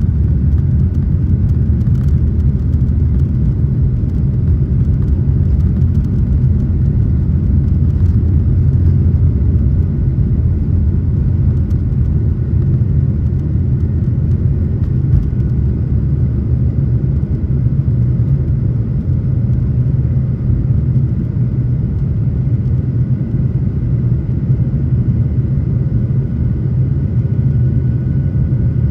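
Jet airliner's engines at takeoff power, heard from inside the cabin: a loud, steady low rumble with a faint high whine above it.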